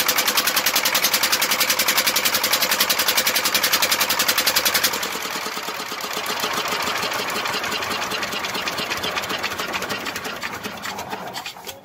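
8 hp single-cylinder diesel engine running with a rapid, even firing beat. It drops in level about five seconds in and fades near the end.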